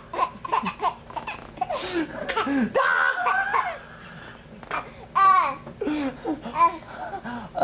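A baby laughing in short stop-start bursts of giggles, with a loud high burst about five seconds in.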